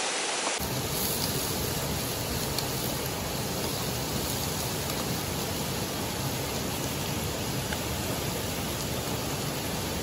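Steady rush of river water and a waterfall, an even roar that holds at a constant level; it comes in fully about half a second in.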